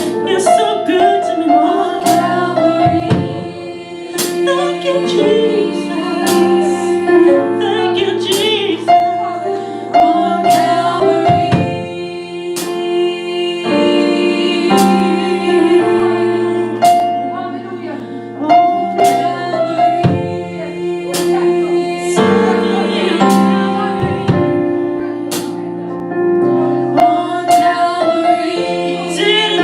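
Gospel vocal group singing in harmony, female voices prominent, over sustained piano or keyboard chords, with regular percussive hits keeping the beat.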